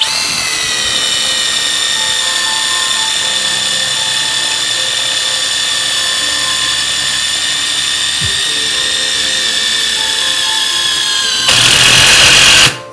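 Cordless impact driver running a self-drilling screw into half-inch steel plate: a steady motor whine that slowly sags in pitch as the drill point cuts. Near the end it turns louder and harsher for about a second, the impact mechanism hammering as the screw bites, then stops.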